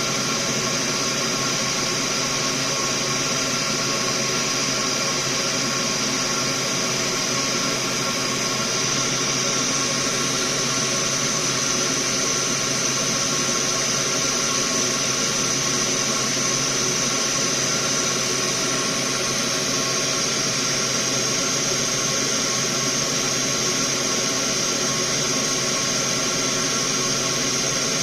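Soldering fume extractor's fan running steadily: an even airy hiss with a few constant tones under it.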